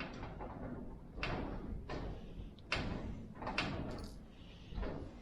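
A Phillips screwdriver working screws out of the plastic steps of a die-cast toy tractor, with parts being handled: about five short scrapes and clicks, roughly a second apart.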